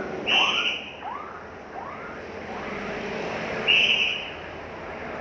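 Two short, shrill whistle blasts about three seconds apart, the kind a traffic police whistle gives when flagging down vehicles. In the first two seconds a run of short rising chirps comes about twice a second, over steady traffic noise.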